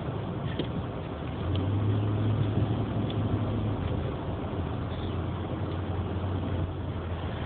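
Car engine and road noise heard from inside the cabin while driving: a steady low hum that gets louder about a second and a half in and eases back a little near four seconds.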